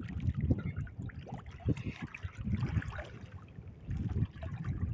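Shallow sea water splashing and sloshing in irregular bursts as a person wades and ducks under the surface.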